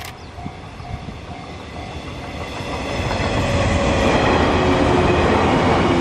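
A level-crossing warning bell ringing at about two strokes a second, then the 485-series electric train passing close by, its wheel and running noise building over a couple of seconds to a loud steady rumble with a faint hum.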